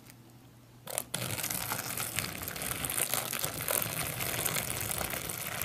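Hot water poured steadily into an opened pouch of freeze-dried spaghetti, a grainy splashing hiss that starts just after a short knock about a second in.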